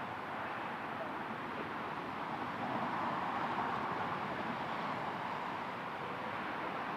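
Steady wash of distant freeway traffic noise, swelling slightly around the middle.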